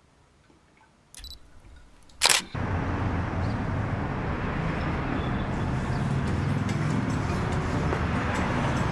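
After a near-silent second, a single loud, sharp click about two seconds in, then steady outdoor background rumble and hiss.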